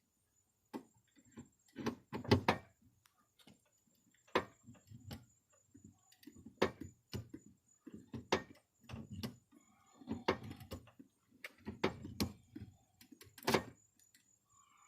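Hand-squeezed rivet gun being worked on a 1/4-inch rivet in a car door: a series of sharp metallic clicks and clunks, irregularly spaced about one to two seconds apart.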